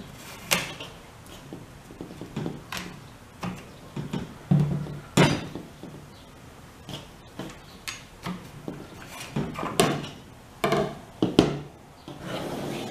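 Steel Danish model 1915 long bayonet being handled on and off a Krag-Jørgensen rifle's muzzle and set on a table: irregular metallic clicks, knocks and scrapes, with the loudest knock about five seconds in and two more near the end.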